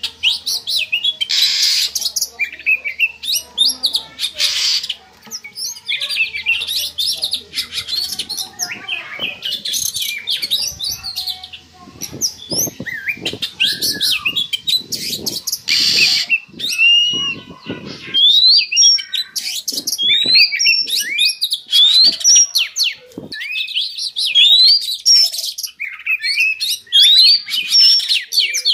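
Oriental magpie-robin (kacer) singing its breeding-season song: a rapid, varied run of chirps and whistles. About halfway through it gives a stretch of rougher, scratchy notes, then repeats short upward-sweeping whistles.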